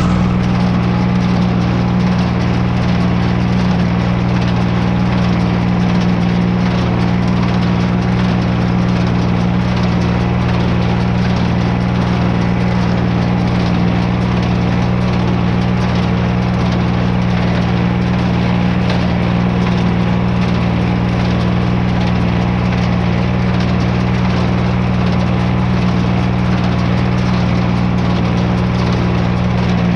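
Farm tractor engine running steadily at a constant speed, with a strong low hum.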